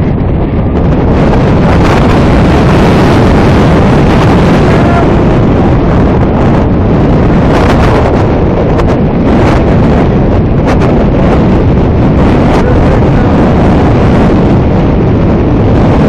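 Strong wind buffeting a phone's microphone: a loud, steady rumbling noise that swamps everything else.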